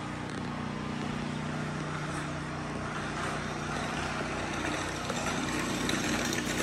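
A machine running steadily: a low, even hum under a rushing noise that grows louder in the second half.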